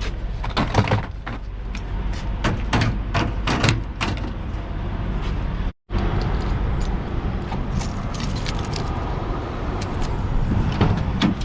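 Road noise from a moving vehicle: a steady low rumble, with a run of clicks and knocks in the first half. The sound cuts out for a moment near the middle.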